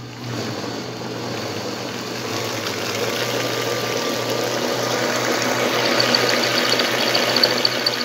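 Walita Master Pro food processor running in its stand-mixer mode, the motor humming steadily as the beater churns through cake batter in the bowl. The sound slowly grows louder, and from about two-thirds of the way in a high, fast pulsing whine joins it.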